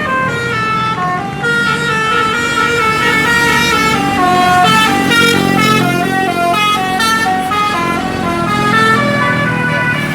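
A bus's telolet Basuri multi-tone musical horn playing a tune of quick stepped notes, over a steady low engine note.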